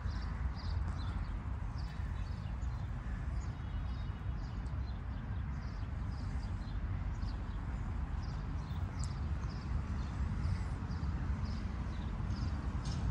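Steady footsteps of someone walking, about two steps a second, under a low rumble of wind on the microphone.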